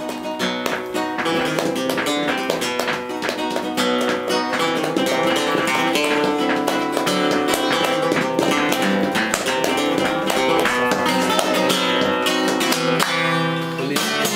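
Flamenco played on a nylon-string acoustic guitar, mixing plucked melody notes with sharp strummed strokes, while someone claps along by hand.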